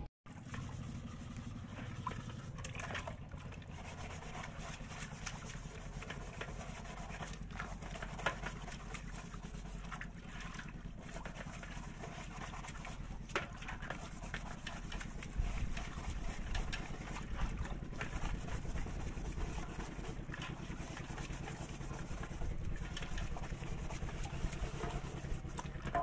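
Water splashing and sloshing with scrapes and clicks as a flat metal lid is scrubbed by hand in a basin of water, over a steady low hum.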